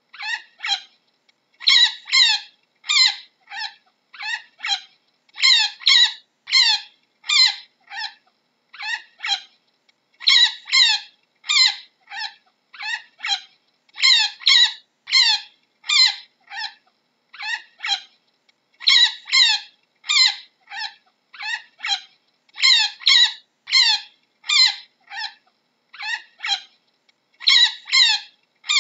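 Chinchilla calling: short, high-pitched squeaking calls that bend in pitch, repeated in quick runs of two to four, a run every second or so.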